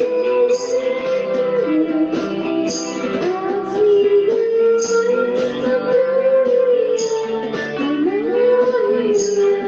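Guitar-led music: a held, gliding melody over steady plucked chords, with a short high accent about every two seconds.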